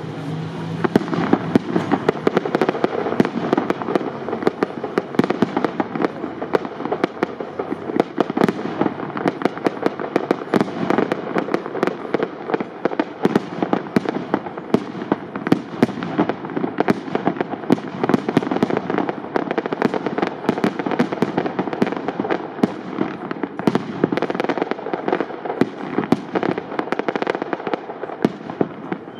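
Aerial fireworks display of shells up to 75 mm calibre, firing a dense, continuous barrage of rapid bangs and crackles with no pause.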